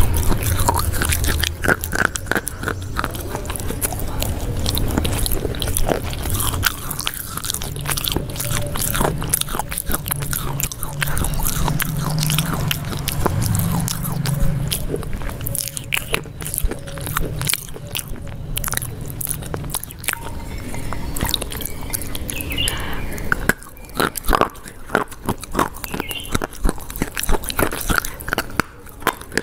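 Close-miked chewing and biting of food, a dense, irregular run of sharp clicks and crunches in the mouth right at a lapel microphone.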